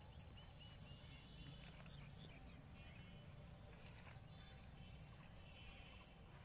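Faint sound of a cow grazing, tearing and chewing leafy plants in small irregular crunches, over a low background rumble with a few faint bird chirps.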